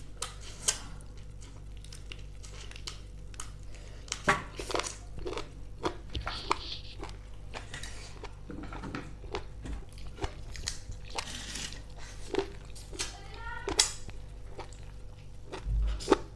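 Close-up chewing and eating sounds: wet mouth smacks and sharp little clicks at an irregular pace as someone chews a mouthful of rice and meat curry eaten by hand.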